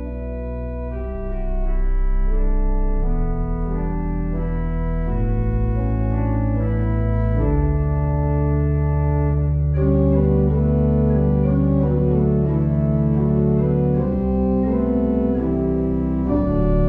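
Slow organ music: sustained chords that change every second or two over long held bass notes.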